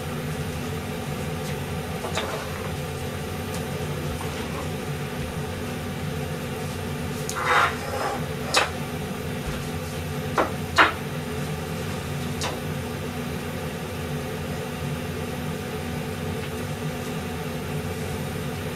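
A steady low kitchen hum, with a few short clattering knocks about halfway through.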